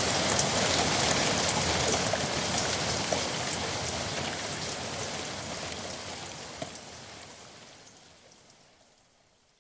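Heavy rain falling on a yard, a steady hiss with sharp drops hitting surfaces, fading out gradually over the last several seconds to silence.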